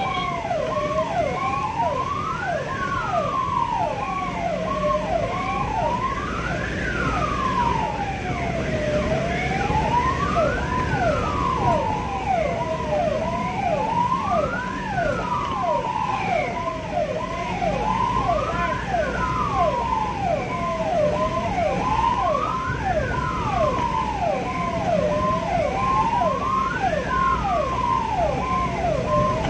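Ambulance siren sounding continuously: a slow wail rising and falling about every four seconds, overlaid with rapid short falling chirps, over steady road and engine noise.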